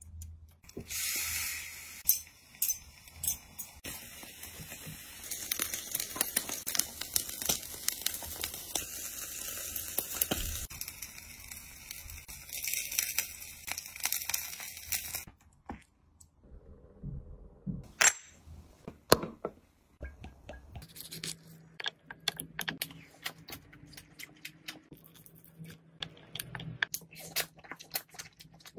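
Aluminium foil crinkling and tearing as it is pulled open, then a roast pork leg sizzling and crackling on a hot grill. After a sudden cut about halfway through come close-miked crunchy bites and chewing.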